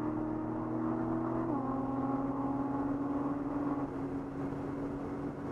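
Nissan 300ZX twin-turbo VG30DETT V6 heard from inside the cabin while driving, with road noise under it. Its steady tone drops suddenly in pitch about a second and a half in and fades near four seconds in.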